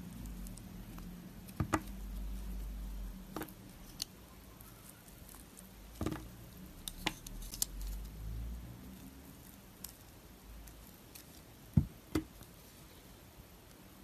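Blade snapping pieces off a scored block of clear pink soap: scattered sharp cracks and clicks, about eight in all, the loudest near the end, over low handling rumble in places.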